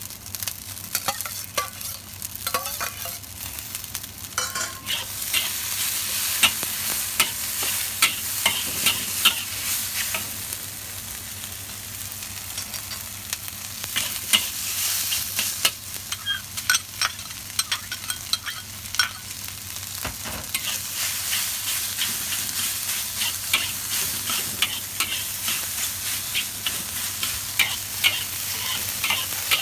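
Fried rice with diced chicken thigh and egg stir-frying in a hot wok: a steady sizzle, louder from about five seconds in, broken by frequent sharp clicks and scrapes of the spatula against the wok.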